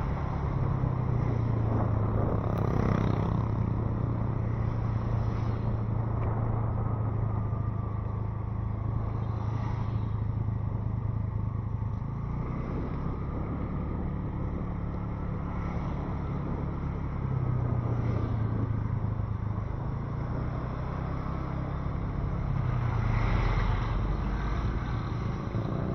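An engine running steadily for the whole stretch, its low hum drifting slightly up and down in pitch.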